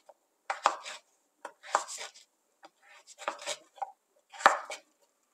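Kitchen knife slicing a zucchini lengthwise into strips on a wooden cutting board: about six separate crisp cuts, spaced unevenly.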